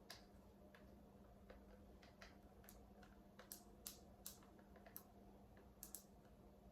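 Faint, irregular small clicks and ticks of a film camera being handled, about a dozen spread over the few seconds, a few close together near the end, over a low steady room hum.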